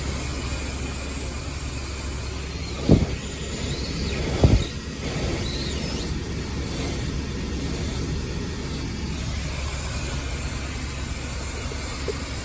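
2021 Volvo XC90 air conditioning running on max: a steady blowing hiss from the vents, which the owner takes for a fault in the AC. Two dull thumps stand out about three and four and a half seconds in.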